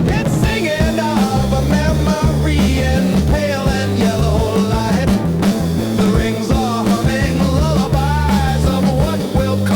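Psychedelic rock music: a full band playing, with a stepping bass line and drums under a wavering lead melody.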